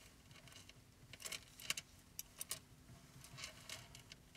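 Faint, irregular metallic clicks and light clinks as a gold pocket watch and its link chain are turned over in gloved hands, a few small clusters of taps with no chiming.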